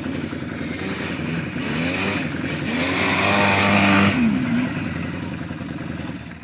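Quad bike (ATV) engine revving with its pitch rising and falling, loudest as it passes close about three to four seconds in, then falling away sharply just after four seconds.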